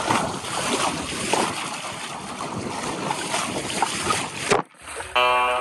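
Bow wave of a Pirate 17 sailboat under way: water rushing and splashing against the hull in uneven slaps. It cuts off suddenly about four and a half seconds in, and music begins near the end.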